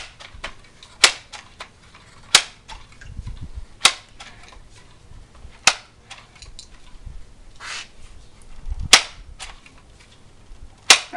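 Crosman multi-pump pellet gun being pumped: a series of about seven sharp clacks one to two seconds apart, with lighter clicks between them.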